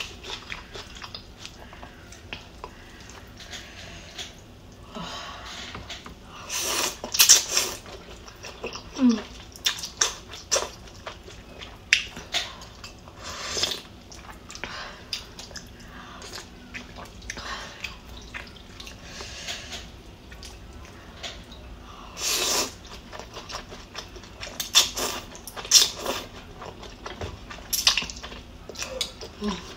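Eating sounds: pho rice noodles slurped and chewed, with sips of broth and the spoon and chopsticks clicking against the bowl, in irregular bursts with a few longer, louder slurps.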